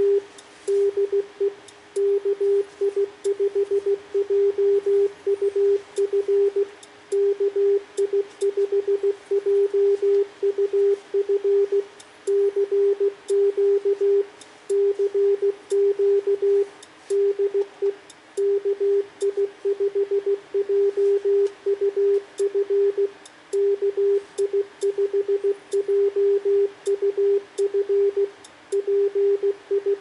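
Yaesu FT-991A's CW sidetone while the radio transmits: a single steady tone keyed on and off in Morse code, computer-keyed from DM780 with even, machine-regular timing. Faint clicks come now and then.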